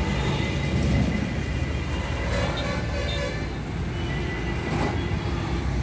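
Road traffic on a busy highway: a steady rumble of passing vehicles' engines and tyres.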